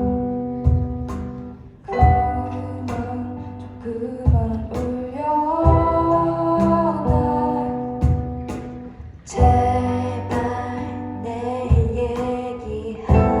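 Live band playing a slow ballad: a singer holding a sung melody over steady drum beats about once a second, with sustained bass and accompanying instruments.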